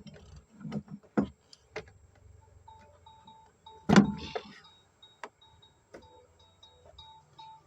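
Scattered clicks and knocks of work on the car, with one loud knock about four seconds in. From about three seconds in, a short electronic beep repeats steadily, about two and a half times a second.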